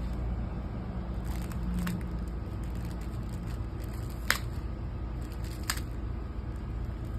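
A few short, sharp crinkles as a monkey works at a granola bar wrapper, the loudest about four seconds in, over a steady low background hum.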